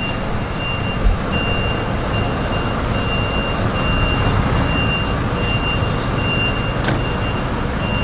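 Heavy truck's warning beeper sounding repeated high beeps over the steady low rumble of its diesel engine running, with a single thump about a second in.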